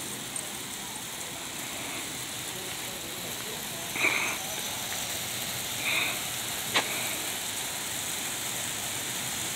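Steady hiss of water jetting from a garden hose spray nozzle, with two short louder sounds about four and six seconds in and a sharp click just before seven seconds.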